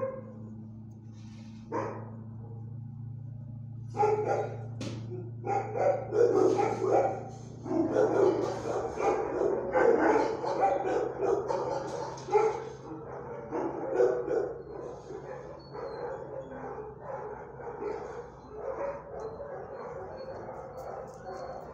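Shelter dogs barking in overlapping bursts. The barking starts in earnest about four seconds in, is densest over the next ten seconds, then goes on more quietly.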